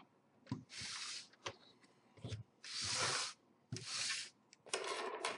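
Plastic console casing being handled: about four short rubbing scrapes of plastic on plastic, each about half a second long, with a few light clicks between them.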